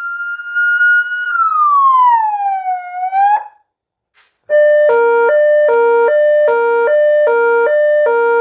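AS920 siren amplifier driving a 200 W stainless-steel C200TT siren speaker. It sounds a slow wail that holds high, slides down and climbs again, then stops about three and a half seconds in. After a second's pause it switches to a hi-lo two-tone, alternating between two notes a little more than twice a second.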